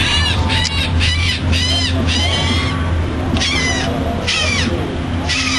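Birds calling: a quick run of short high calls that rise and fall, about two a second, then three more calls spaced about a second apart. A steady low hum runs underneath.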